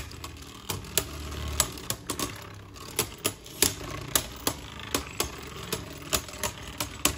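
Two Beyblade Pro Series spinning tops, Fafnir and Valtryek, circling and clashing in a plastic stadium: irregular sharp clacks, two or three each second.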